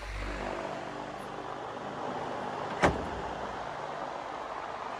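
Wooden greenhouse door pushed open and walked through, with a low rumble of handling at the start and one sharp knock a little under three seconds in, over a steady background hum.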